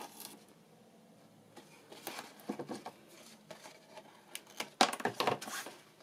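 Card and double-sided tape being handled as a strip of tape is laid along the edge of a card panel: short rustles and scrapes of paper, in two clusters, the louder one near the end.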